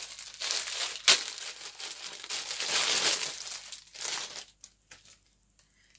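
Packaging crinkling as a small parcel is handled and opened, with one sharp snap about a second in. The crinkling stops at about four and a half seconds, leaving a few faint ticks.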